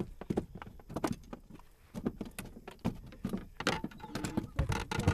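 Irregular knocks, thumps and light rattles on a bass boat's deck as a freshly landed largemouth bass is handled.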